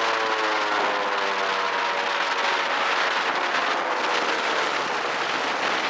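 Airboat engine and propeller running at speed, its pitch dropping slightly over the first second or so, then holding steady.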